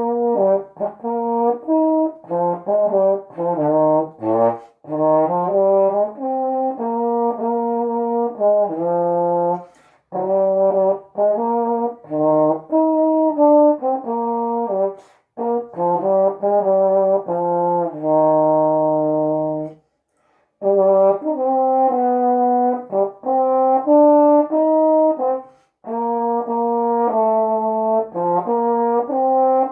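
Solo trombone playing a slow hymn melody, note by note in phrases, with short breaks between phrases, the longest about 20 seconds in.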